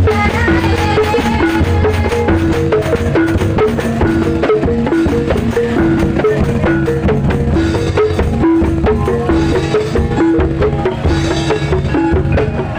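Javanese parade percussion music: small handheld gongs ring a repeating pitched pattern over steady drumming on frame drums and large bass drums.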